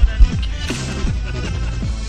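Background music with heavy bass and repeated falling pitch sweeps, with a loud bass hit about a quarter second in.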